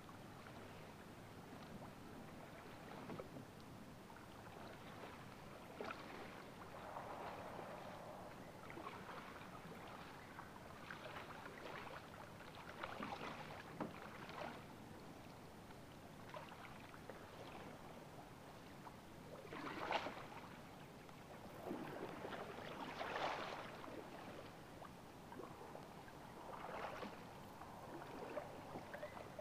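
Kayak paddle strokes dipping and splashing in a shallow creek: faint, irregular swishes that grow louder later on.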